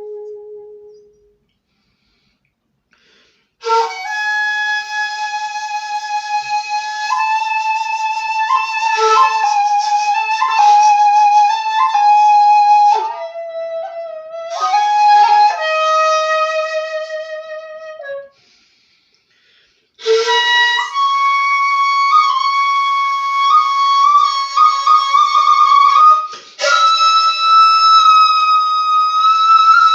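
Jinashi shakuhachi (1.7 length) played solo: long held notes with quick grace-note ornaments and small pitch bends, in three phrases, each separated by a pause of about two seconds; the last phrase sits higher.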